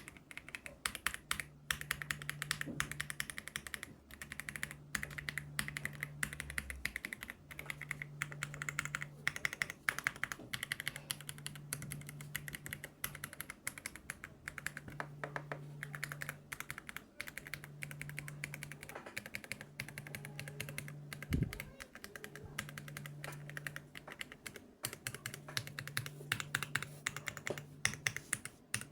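Royal Kludge RK R75 mechanical keyboard with brown (tactile) switches being typed on steadily: a fast run of keystroke clacks broken by a few short pauses.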